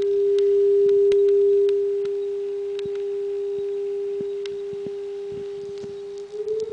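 Steady sine-wave test tone from a signal generator, passed through a Fisher K-10 Spacexpander tube spring reverb. The tone drops in level after about a second and a half as the dry level is turned down, leaving the reverb signal only. Near the end it starts to glide upward in pitch.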